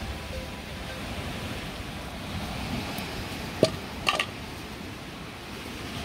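Steady noise of wind and surf, with a sharp knock about three and a half seconds in and a short clink just after it.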